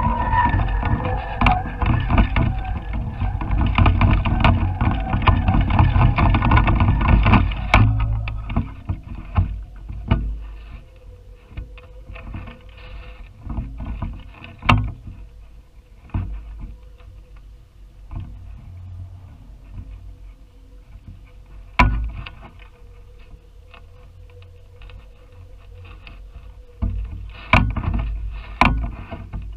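Wind gusting over the microphone of a GoPro slung from a kite line, a loud low buffeting rumble that drops off suddenly about eight seconds in as the gust passes. After that, a quieter rush with a few sharp knocks from the swinging camera rig.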